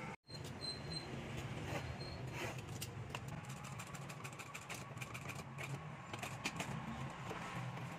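Steady motor hum of an industrial sewing machine, with light irregular clicks and taps as it stitches leather.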